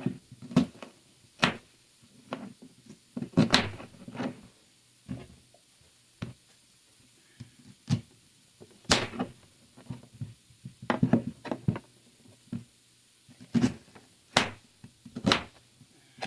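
Irregular sharp knocks and thuds of onions being handled and put in place. There are about twenty knocks, some in quick clusters; the loudest comes about nine seconds in.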